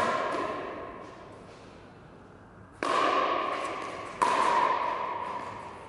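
Sharp pops of a plastic pickleball being struck, each ringing on in the hall's echo: one at the start, one about three seconds in, one just after four seconds, and another at the end.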